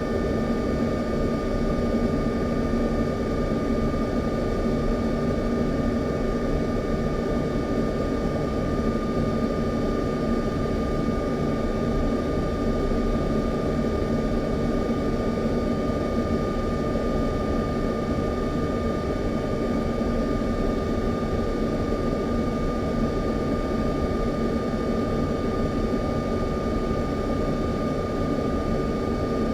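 Aircraft engine drone, steady and unchanging: a low rumble with a constant high whine over it.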